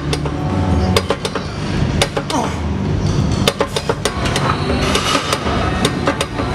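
Background hip-hop style music with a bass line and a steady, crisp beat, with a falling swoop about two seconds in.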